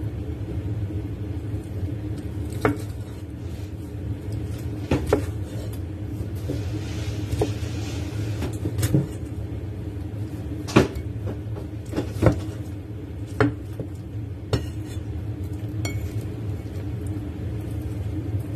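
Meat cleaver knocking on a wooden cutting board while cutting a cooked pork elbow: about ten sharp, irregular knocks over a steady low hum.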